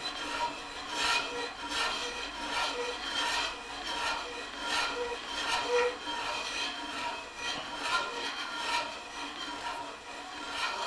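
Long extended drill bit boring deep into a timber bench frame: a rhythmic rasping of wood being cut, with a stroke about every three-quarters of a second.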